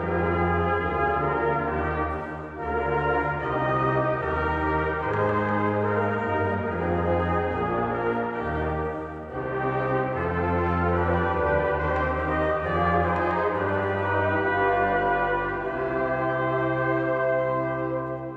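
A brass choir of trumpets, trombones and tuba plays sustained chords over a moving bass line, with two brief breaks between phrases.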